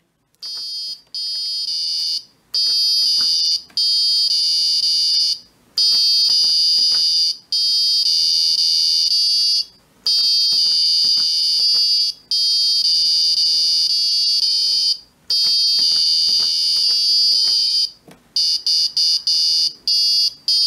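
Electronic buzzer of a homemade Arduino memory-game alarm clock sounding high-pitched tones: a series of long beeps, each one to three seconds, with short gaps between them, then a run of quick short beeps near the end. These are the game tones played while solving the memory game that silences the alarm, with the short beeps being the clock's victory tune for a solved game.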